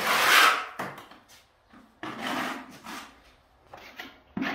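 Steel spatula spreading and scraping tile adhesive across a wall in a few rasping strokes, the first the loudest.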